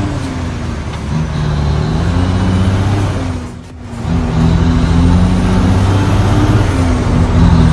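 A heavy truck engine running, dropping away briefly a little past halfway and then coming back stronger and steady.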